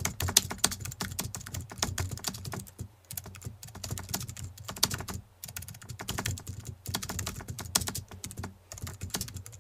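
Keyboard typing sound effect: rapid, irregular key clicks in runs, with a couple of short pauses, accompanying on-screen text being typed out.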